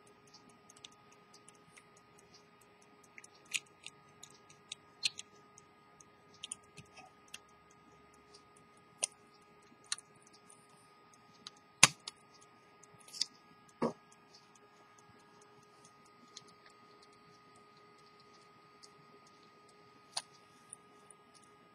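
Scattered small metallic clicks and taps from handling an antique silver-cased pocket watch as its hinged movement and case are closed, coming irregularly rather than in a steady ticking rhythm. The loudest, sharpest click comes about twelve seconds in, with a duller knock shortly after.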